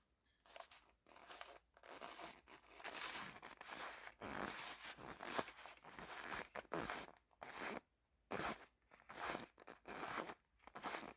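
Foley for a phone: a run of short scraping, rustling strokes of something being handled and rubbed, dense and uneven through the middle and settling into about two strokes a second near the end.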